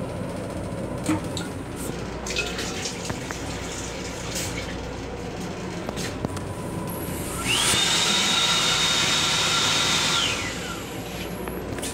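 The M7 railcar restroom's sensor-activated sink unit comes on about seven seconds in. It runs for about three seconds with a rushing hiss and a high whine that rises as it starts and falls away as it shuts off.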